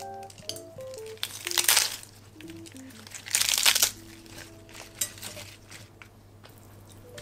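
Crisp crinkling and tearing as iceberg lettuce leaves are pulled from their wrapping and torn by hand onto a glass plate, in a few short bursts, the two loudest about a second and a half and three and a half seconds in. Soft background music plays throughout.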